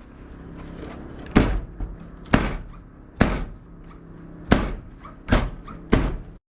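A run of heavy thuds and slams, about six over five seconds with smaller knocks between, as the rear hatch of a hatchback car is shut.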